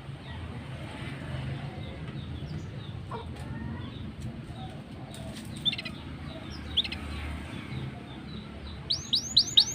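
Black-throated canary singing: scattered faint chirps and two sharper single notes, then near the end a run of quick, repeated curving whistles as a loud song phrase begins.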